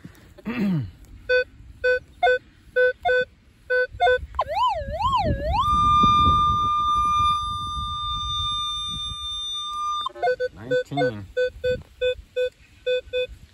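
Minelab Equinox 600 metal detector beeping over a buried target that reads 18–19: a run of short, even low beeps, about three a second, as the coil sweeps back and forth. Midway a wavering tone swings up and down, then holds as one steady higher tone for about four seconds before cutting off, and the short beeps start again.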